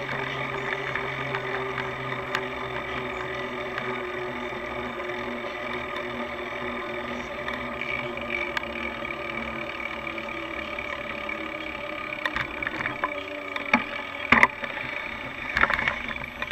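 Steady hum of traffic and road noise during a bicycle ride, heard from a bike-mounted camera, with a few sharp knocks and rattles in the last few seconds.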